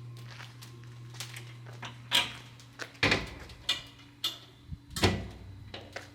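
The door of an oak-wood-fired grill being shut and fastened, a series of sharp knocks and clanks about two to five seconds in, the loudest near the middle and near the end.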